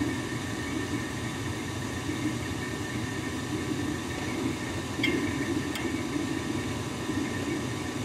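Gas furnace running steadily through its lighting sequence as the hot surface igniter heats and the pilot lights. Two faint clicks come about five seconds in.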